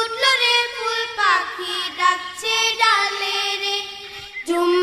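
Song with a high voice holding long notes and sliding between them.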